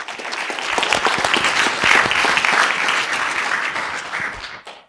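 Audience applauding, building over the first second or two and dying away near the end.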